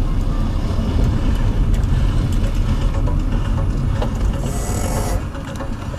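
Road and engine noise inside a moving car: a steady low rumble, with a brief hiss about four and a half seconds in.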